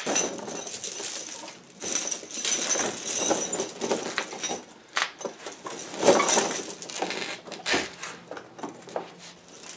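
Steel cross-link tire chains clinking and rattling as they are handled and draped over a tractor's rear tire, in uneven bursts with a few sharp clanks.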